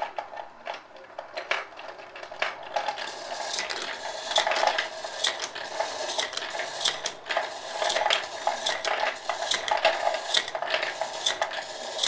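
Bulk bullets clattering and clinking against one another and the plastic plate in a 3D-printed bullet feeder's hopper as its rotating plate turns, tumbling the pile and picking bullets into its edge slots. A dense stream of small clicks, busier from about three seconds in.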